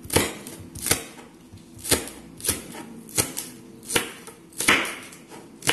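Kitchen knife chopping spring onion on a wooden cutting board: about eight evenly spaced knocks of the blade striking the board, roughly one every 0.7 seconds.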